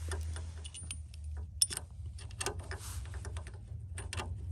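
Irregular light metallic clicks and clinks of a bolt being pushed through a metal backrest support bracket and the recliner frame's holes, with one sharper click about one and a half seconds in. A steady low hum sits underneath.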